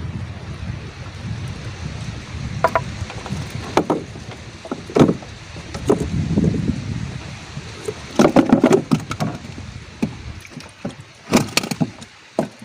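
Scattered sharp knocks and clatters, some in quick clusters around four, eight and eleven seconds in, over a low rumble that dies away about ten seconds in.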